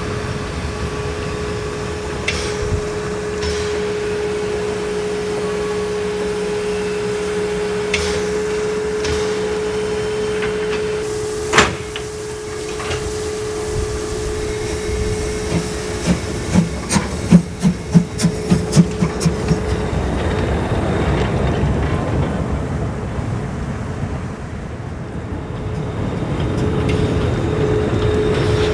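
Narrow-gauge steam locomotive standing in steam with a steady hum and one sharp knock, then starting off with a quick run of exhaust chuffs, about three a second, and a growing rumble as it moves away.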